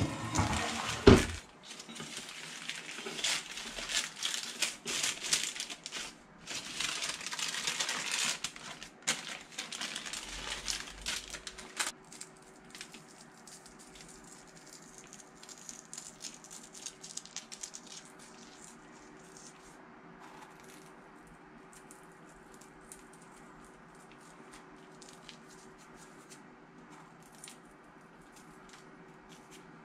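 Baking paper crinkling and rustling as a sheet of rolled-out crispbread dough is slid over a wooden counter, with two sharp knocks in the first second or so. After about twelve seconds the rustling stops, leaving only a faint steady hum.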